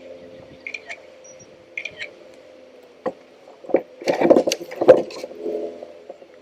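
Knocks, scrapes and rustling as gear is handled in a fishing kayak, loudest in a cluster about four to five seconds in. A steady low hum lies underneath, and birds chirp briefly near the start.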